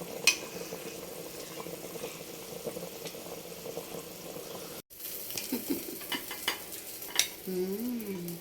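Chicken frying and sizzling in a pot while it is stirred, with the utensil clicking sharply against the pot several times.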